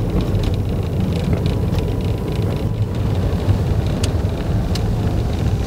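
Car driving on a rough, patched country road, heard from inside the cabin: a steady low rumble of engine and tyres, with a couple of short clicks about two thirds of the way in.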